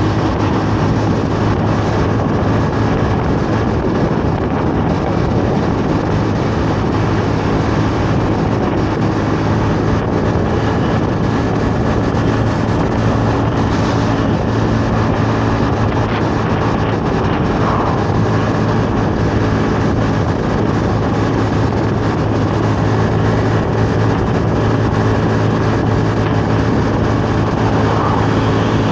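Honda Navi 110's small single-cylinder four-stroke engine running at a steady cruising speed, with wind and road noise over the microphone.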